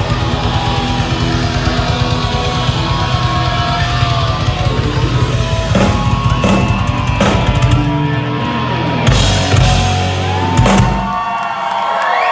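Live hard rock band playing loud, with pounding drums and distorted electric guitar and bass. About eight seconds in the steady beat breaks off into a few heavy full-band hits, and the music dies away just before the end: the close of the song.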